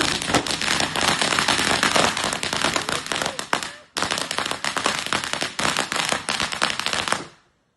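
Fireworks crackling: a dense, rapid run of small pops and cracks that breaks off briefly about four seconds in, starts again, then dies away near the end.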